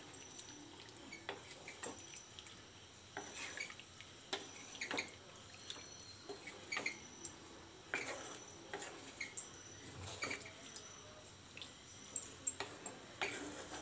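A spatula stirring potato chunks in a watery curry gravy, knocking and scraping against the pan in light, irregular clicks, with wet sloshing.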